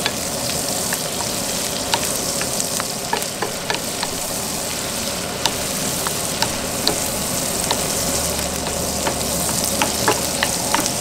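Shrimp, onions and tomatoes sizzling in butter in a frying pan on a propane camp stove, stirred with a wooden spoon. A steady frying hiss with scattered sharp clicks throughout.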